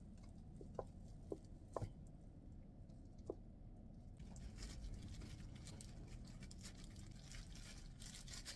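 Faint handling of plastic food packaging: a few light clicks as a clear plastic container is lifted off a plate, then soft crinkling of plastic wrap and disposable plastic gloves from about four seconds in.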